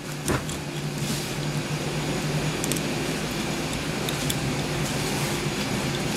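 Steady low mechanical hum, like a small motor or fan running, with a few faint light clicks.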